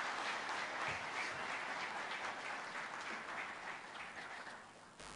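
Audience applauding, many hands clapping at once; the clapping fades out near the end.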